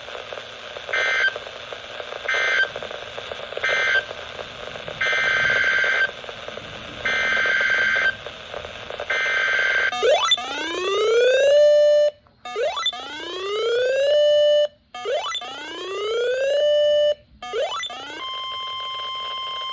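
NOAA Weather Radio emergency alert sequence heard over static: six short buzzy screeches of digital SAME alert data, then four rising whooping alarm sweeps of about two and a half seconds each. Near the end the steady single-pitch Warning Alarm Tone starts, signalling a new warning is about to be read.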